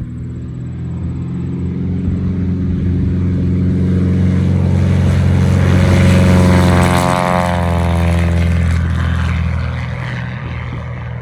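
Cessna 180's Continental O-470 six-cylinder engine and propeller at takeoff power, a deep, throaty sound that grows louder as the plane comes closer. About seven seconds in it passes by and the pitch drops, then it fades.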